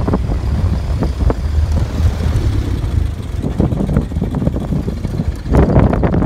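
Ford Model T's four-cylinder engine running as the open car drives along, with road noise and wind buffeting the microphone. It grows louder near the end.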